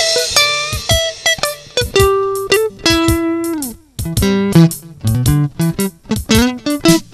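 Electric guitar playing a blues lead of picked single notes with string bends, over a drum machine beat.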